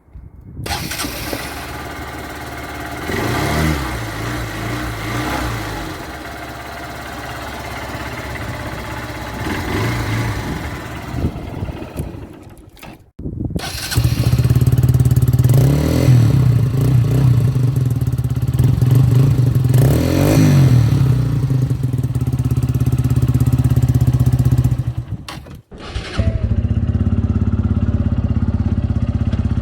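Honda CBF125 single-cylinder four-stroke motorcycle engine idling and being blipped a few times. It is quieter in the first part; after a cut it is noticeably louder and deeper through the Blackwidow 300mm aftermarket full-system exhaust, with two revs. After another cut it settles into a steady idle.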